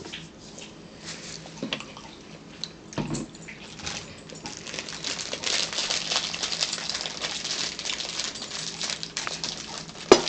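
Crinkly rustling and crackling at a dinner table, growing louder about five seconds in, then a sharp knock near the end as a drinking glass is set down on the table.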